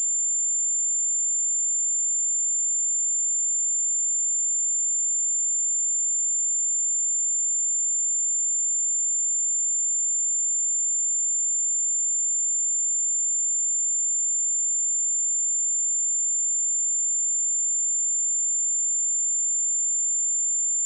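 A pure 7225 Hz sine-wave test tone, a single high steady whistle held at constant pitch and level.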